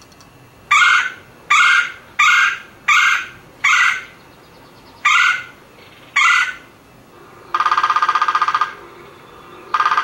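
Recorded red-bellied woodpecker calls: seven short, harsh notes spaced under a second apart, then, after a short pause, two longer rolling, rapidly pulsed churring calls near the end.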